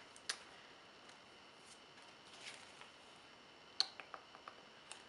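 Soft paper rustles and faint clicks of a small disc-bound sticker book being opened and its pages turned by hand, with the sharpest click a little under four seconds in, followed by a few lighter ticks.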